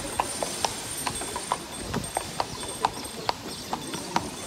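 Carriage horse's hooves clip-clopping on stone paving at a walk, a steady run of sharp clops about four a second.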